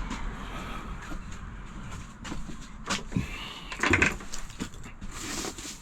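A few scattered knocks and clunks as someone climbs the caravan's step and moves about at its door, with a short hiss near the end.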